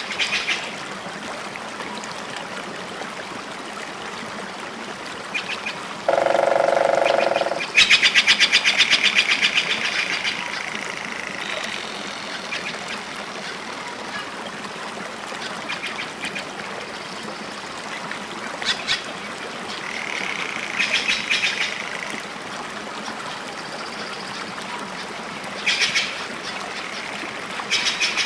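A steady background of running water with birds calling over it: a long, even call about six seconds in, a rapid chattering run of calls right after it, and a few shorter chirps later.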